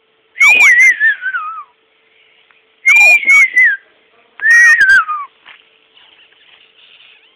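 A small dog whining in three long, high-pitched cries, each wavering and falling in pitch.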